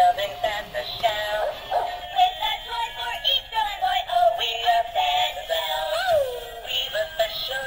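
Dan Dee Side Stepper elf dog, an animated plush toy, playing a sung Christmas song through its small built-in speaker as it dances. The sound is thin and tinny, with no bass.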